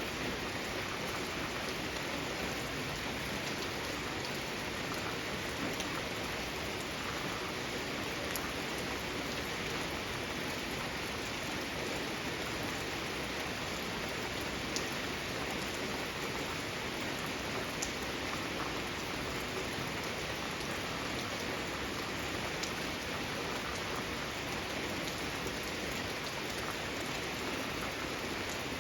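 Steady rain falling, an even hiss with a few sharper individual drops standing out now and then.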